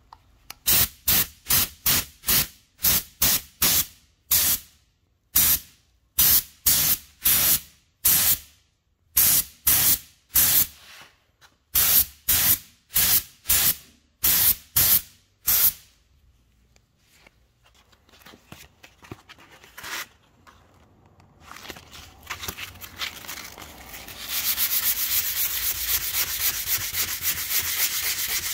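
Compressed-air paint spray gun hissing in many short trigger bursts, about two a second, over the car's body panel. After a quieter stretch, steady scratchy hand sanding on the panel starts in the last few seconds.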